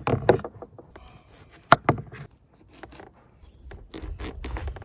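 Large kitchen knife slicing through the rind of a whole watermelon on a wooden cutting board: rubbing and scraping as the blade works through, broken by a few sharp snaps.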